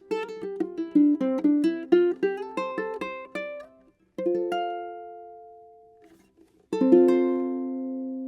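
Kanileʻa KO-1 tenor ʻukulele played solo. It opens with a quick run of plucked single notes, then a chord is struck a little past halfway and fades. A last strummed chord near the end is left ringing.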